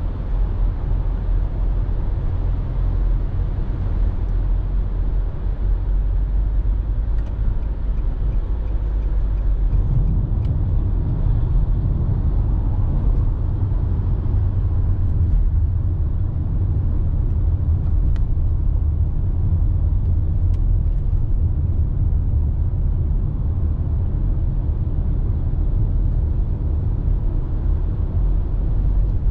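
Nissan Serena minivan driving at expressway speed: a steady low rumble of road and engine noise, getting somewhat deeper and fuller about ten seconds in.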